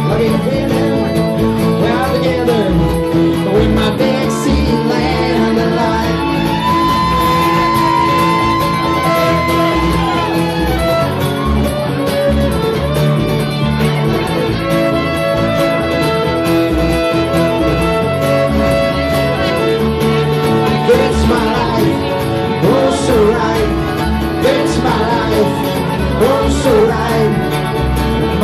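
Live acoustic country/bluegrass band playing: strummed acoustic guitars under a fiddle line, a continuous passage with no break.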